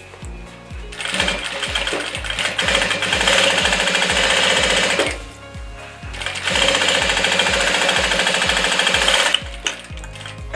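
JACK industrial straight-stitch sewing machine running, stitching a seam in two runs of a few seconds each with a short pause between. Background music with a steady beat plays underneath.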